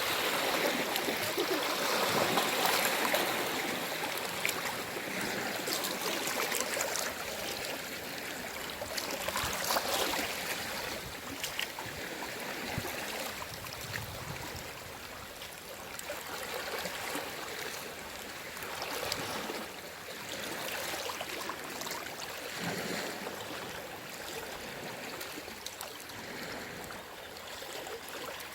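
Small waves from a calm sea lapping and washing, swelling and easing in a slow, irregular rhythm. The surges are strongest near the start and again about ten seconds in.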